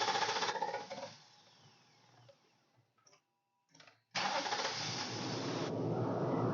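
2014 Nissan Armada's 5.6-litre V8 being started on starting fluid sprayed into the intake: the starter cranks until about a second in and stops, then after a pause and a couple of clicks a second attempt about four seconds in fires and the engine keeps running. It starting on the fluid points to a fuel-delivery fault, which the owner suspects is the in-tank fuel pump's priming.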